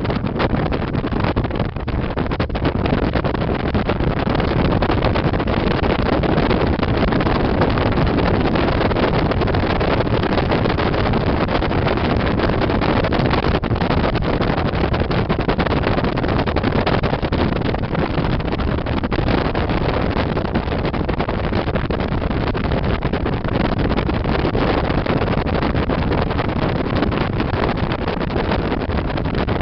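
Steady rushing wind buffeting the microphone of a camera on a moving Harley-Davidson motorcycle, with the bike's engine and road noise blended in underneath.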